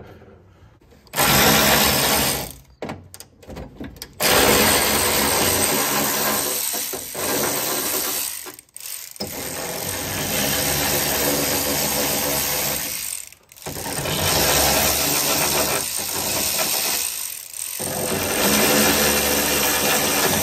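Power ratchet running in bursts, spinning out the bolts that hold a car door's window regulator. After a quiet second comes a one-second run and a few short stutters, then long runs of several seconds broken by brief pauses.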